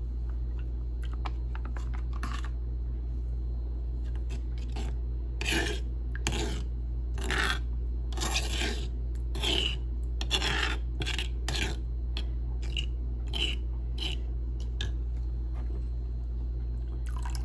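Stone pestle grinding and scraping around a stone molcajete, working chiltepin peppers, garlic and tomato sauce into a wet salsa. The rasping strokes come irregularly, about one a second, through the middle stretch.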